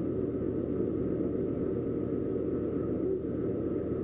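Doosan DX140 excavator's diesel engine running steadily, heard from inside the cab, with a faint steady high whine above the low rumble.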